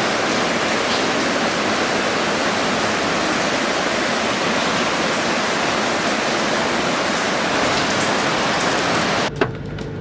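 Steady rush of torrential rain together with the waterfall in spate, an even wash of water noise. It drops off abruptly near the end.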